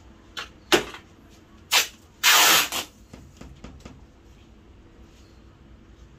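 Black adhesive tape, 1.5 inches wide, being pulled off its roll in short rasping rips, with one longer, louder pull a little over two seconds in, as the back of a picture frame is taped.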